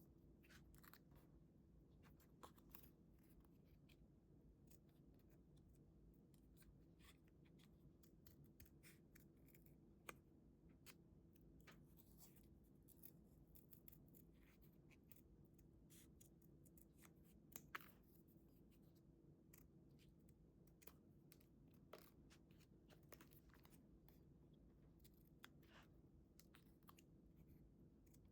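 Faint, irregular snips and clicks of scissors cutting paper, with light paper handling, over a low steady room hum.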